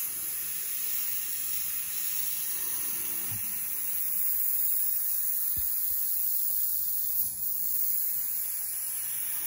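Airbrush spraying paint in a steady, unbroken high hiss of air, laying on dark shading.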